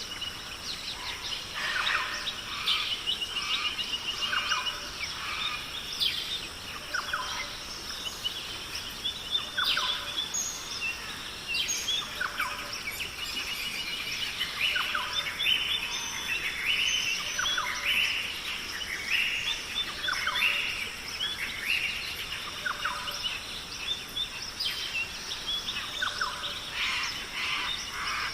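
Many birds calling and chirping over one another, short calls and quick sweeps coming continuously, over a steady high background hiss.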